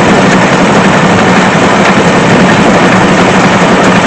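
Tractor running steadily under load, driving a belt-type round baler through the PTO, the baler's freshly spliced belts turning as it runs empty.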